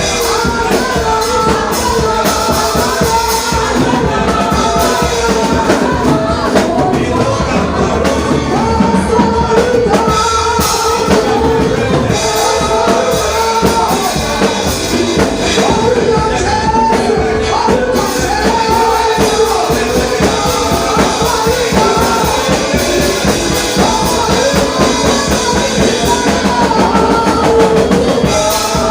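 Live music with singing over a drum kit and tambourine, at a steady loud level.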